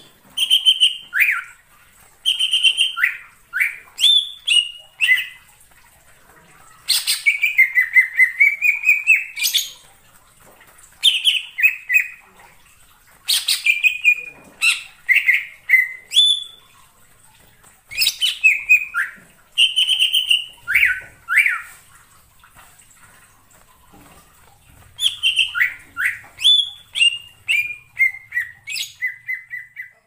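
Cucak ijo (green leafbird) singing a lure song: loud phrases of quick, sweeping whistled notes, with short pauses between phrases. One long phrase in the middle falls and then rises again.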